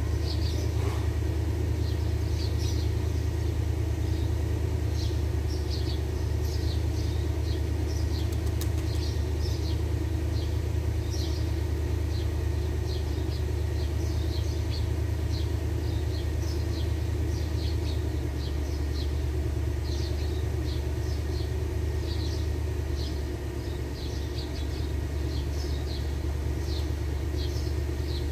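Steady low mechanical rumble, like a running engine or machine, with short high chirps repeating about twice a second over it.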